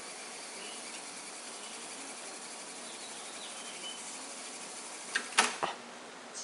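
Akai GX-260D reel-to-reel tape deck running tape, its reels spinning with a steady whir. A little after five seconds in come a few sharp mechanical clunks as the transport is stopped and the reels come to a halt.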